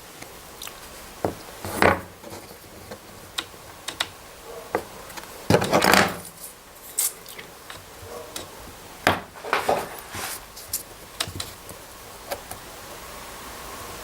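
Irregular clinks, taps and knocks of small metal tools and pocket-knife parts being handled, with a longer scraping rub about five and a half seconds in.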